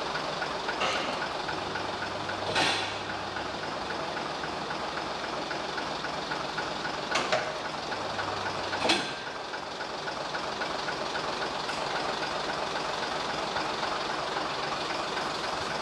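AEC Routemaster bus idling on a brake roller tester during the rear-axle and handbrake test: a steady diesel and machinery drone with a few sharp clunks. Twice a low hum runs for a second or two.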